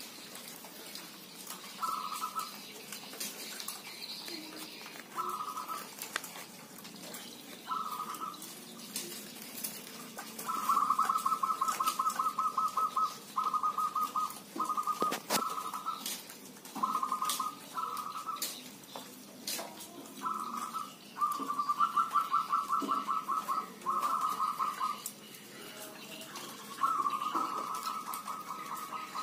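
Local (kampung) zebra doves cooing in rapid staccato trills around one pitch. A few short phrases come first, then longer runs of fast repeated notes from about ten seconds in, with a few sharp clicks between.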